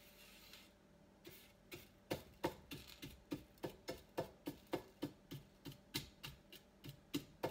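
Rhythmic tapping on a round metal pizza pan, about three taps a second with a slight metallic ring, starting softly and settling into a steady beat after about two seconds; the knocks set the bread crumbs on the pan jumping.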